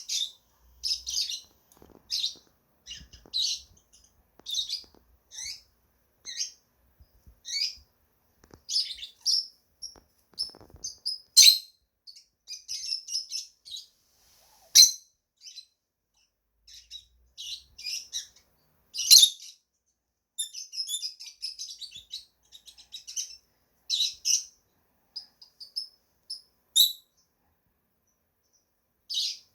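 Lovebirds chirping: short high-pitched calls about once a second, with a few louder, sharper calls and brief pauses between runs.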